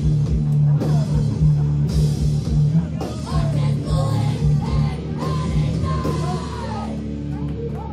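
Live heavy rock band playing loud distorted guitar, bass and drums, with yelled vocals. The drum hits thin out about three seconds in, leaving a ringing chord and sliding pitches over it.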